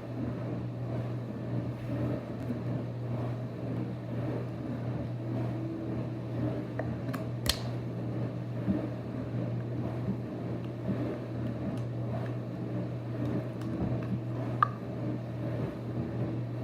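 Steady low hum in the room, with faint handling noises and a sharp click about seven seconds in and another near the end, as a Play-Doh tub is opened and the sticky dough is handled.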